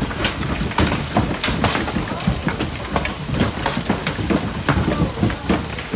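Large hail, some stones tennis-ball-sized, pelting down in a storm: a dense, irregular clatter of hailstone impacts over a steady hiss.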